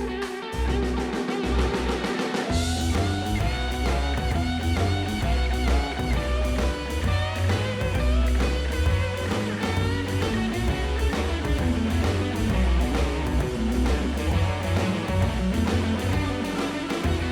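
Background rock music with electric guitar and drums, the full beat coming in about two and a half seconds in.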